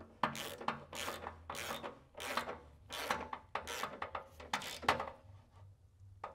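Hand ratchet on a long socket extension tightening the bolt of a steel skid-plate mounting post. Its pawl rasps in short strokes about two to three times a second, and the strokes stop near the end.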